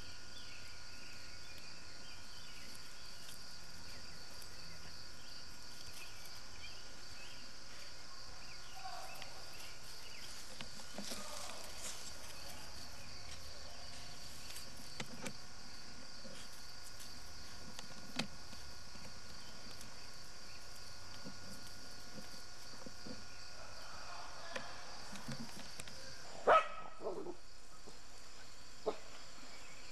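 A dachshund gives two quick, sharp barks near the end, over a steady high-pitched hiss.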